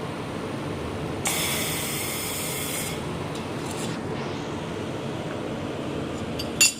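Fiber laser welder firing on copper for about two seconds, a high hiss, over the steady hum of the machine. A short sharp metallic clink near the end.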